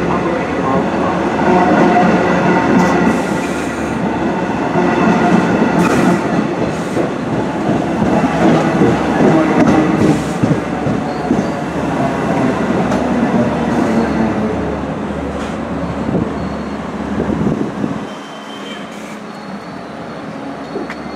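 Long Island Rail Road train of C3 bilevel coaches rolling past along the platform: a steady rumble of wheels on rail with a few sharp clicks. The rumble drops away about 18 seconds in.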